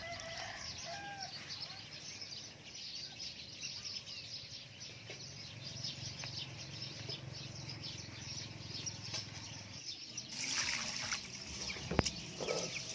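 Birds chirping, with a few short calls in the first second. About ten seconds in, this gives way to a hand swishing and rubbing rice in water in a stainless steel bowl, with one sharp knock near the end.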